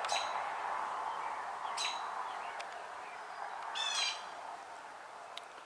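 Small birds chirping: short, sharp, high calls every second or two, with a quick run of several notes about four seconds in, over a steady background hiss.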